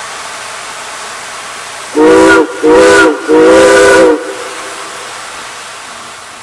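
Steam whistle on CNJ No. 113, a 1923 ALCo 0-6-0 steam switcher, sounding three blasts about two seconds in, two short and then one longer, each a chord of several tones. A steady steam hiss runs underneath.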